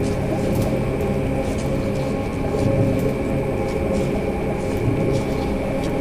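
Ambient glitch electronic music: a steady rumbling drone under sustained held tones, with scattered faint clicks and crackles.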